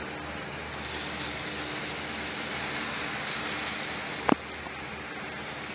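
An N-scale model of a Tokyu series 300 tram running along its track: a steady hiss with a higher whir that swells about a second in and fades away after about three seconds. A short sharp click about four seconds in is the loudest sound.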